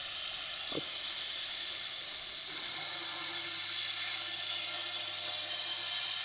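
Lathe boring a 17-4PH stainless steel barbell sleeve, with a steady hiss of coolant spray throughout. A low steady hum comes in about three seconds in.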